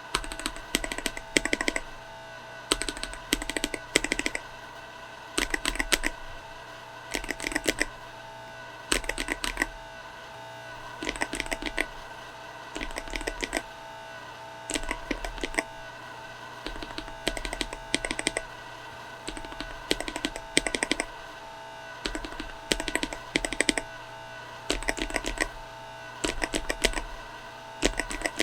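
Typing on a mechanical keyboard fitted with Akko tactile switches, in a switch sound test. The keystrokes come in quick runs of clacks, each with a soft low thud, separated by short pauses.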